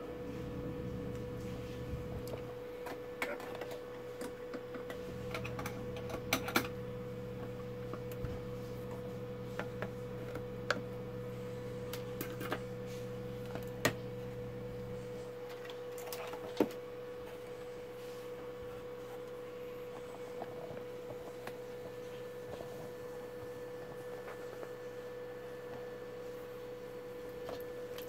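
Scattered sharp clicks and clinks of small tools and parts being handled at a workbench, over a steady mid-pitched tone and a low hum that cuts out about halfway through.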